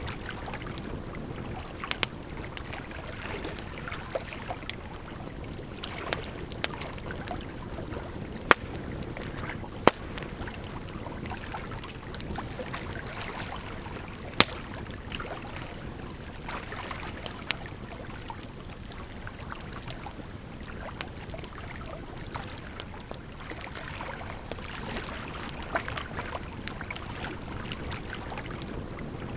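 Burning firewood crackling, with scattered sharp pops, a few of them loud, over the steady rush of flowing water.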